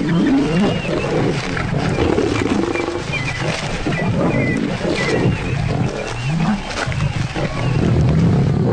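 A pride of lions growling over a warthog carcass as they feed, many low growls overlapping and rising and falling without a break.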